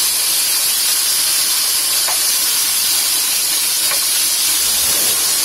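Oxtail pieces sizzling loudly in hot caramelized brown sugar (homemade browning) in a pan, the meat searing in the sugar: a steady hiss.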